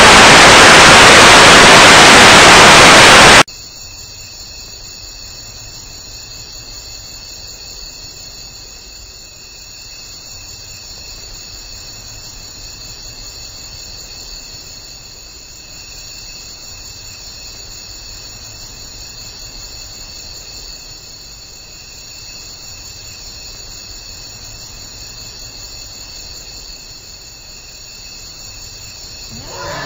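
Loud television static hiss that cuts off suddenly a few seconds in, followed by a steady, quieter chorus of crickets trilling.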